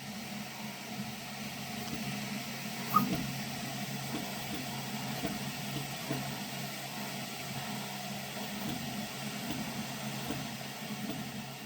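Prusa XL 3D printer running: a steady hum of stepper motors and cooling fans with small irregular ticks from the print head's short moves, and one sharp click about three seconds in.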